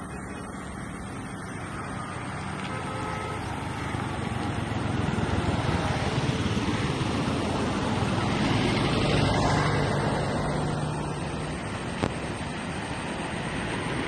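Steady rumble of passing motor traffic, swelling louder through the middle and easing off near the end.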